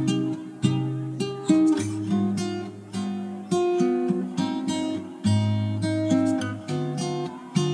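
Background music on acoustic guitar: picked notes and strummed chords, each ringing out and fading before the next.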